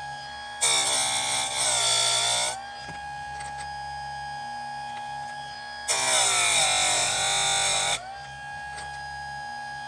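Electric chainsaw sharpener running, its grinding wheel lowered onto a chain tooth twice for about two seconds each. The motor's whine drops in pitch under the grinding load and rises back when the wheel is lifted.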